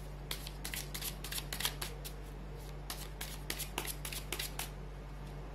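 A deck of tarot cards being shuffled by hand: two runs of quick, crisp card slaps and riffles, each lasting under two seconds, with a short pause between them.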